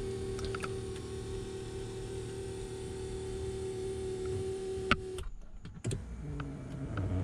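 Electric power seat motor of a 2018 Dodge Durango driving the seat along its track with a steady hum. It stops suddenly about five seconds in with a click, and a few light knocks and a softer hum follow.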